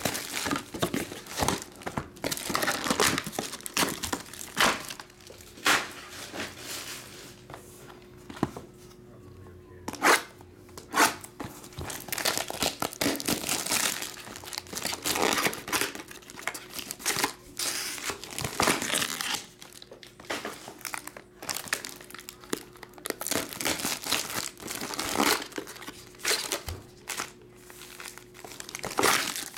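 Clear plastic shrink-wrap crinkling and tearing as it is pulled off a trading-card hobby box and crumpled by hand, in irregular bursts with a short lull about eight seconds in. Near the end, foil card packs rustle as they are handled and stacked.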